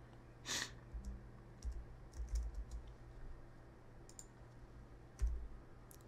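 Computer keyboard typing: scattered keystrokes, a few at a time, with some dull thumps, over a low steady hum.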